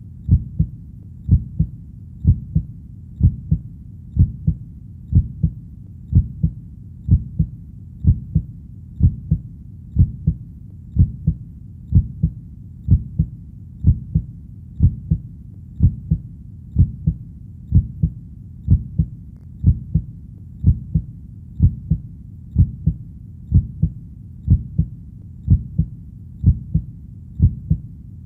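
Heartbeat sound: a steady lub-dub of paired low thumps, about one beat a second, over a soft low background between beats.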